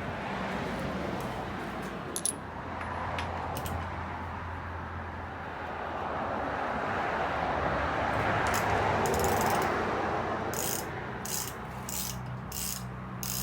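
Hand tools clinking against metal parts of the VR6 engine as the upper timing chain covers are taken off, ending with a run of short, evenly spaced clicks, about two a second.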